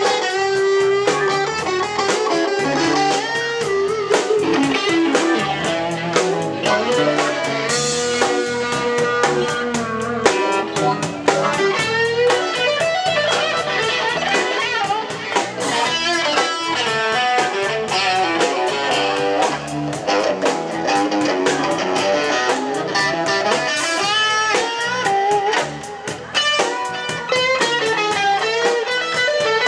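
Live band playing an instrumental passage: electric guitar and electric bass with drums, the guitar playing lines with bent notes over regular drum hits.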